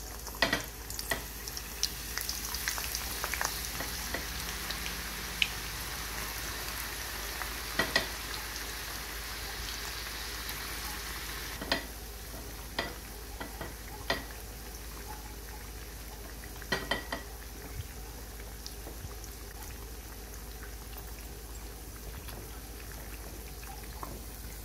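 Sliced onions frying in hot oil in a steel pan: a steady sizzle, with scattered sharp clicks and taps. The onions are freshly added and still raw, at the start of frying.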